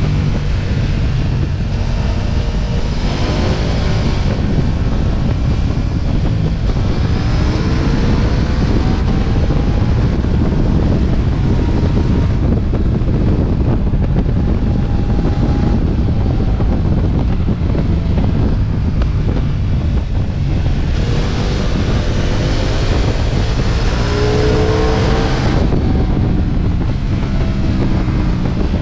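Ducati Multistrada V4 S motorcycle's V4 engine under way, heard through heavy wind buffeting on the microphone; its pitch climbs several times as the bike accelerates.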